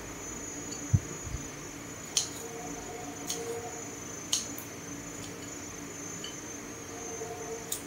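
Soaked rau tiến vua (dried celtuce strips) being cut shorter: a few sharp cutting clicks, a second or more apart, with a soft thump about a second in, over a faint steady high whine.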